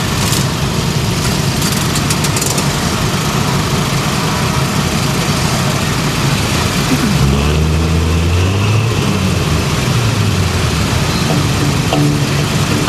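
Several lawn mower engines running and idling together. A louder, deeper engine swells up about seven seconds in and fades again a couple of seconds later, as a mower drives past.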